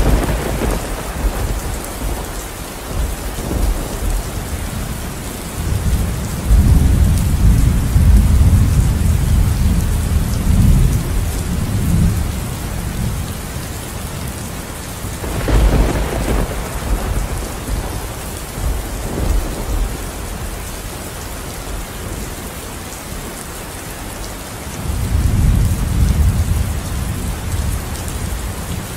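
Steady rain with thunder: sharp thunderclaps right at the start and about halfway through, and long low rumbles of thunder in between and again near the end.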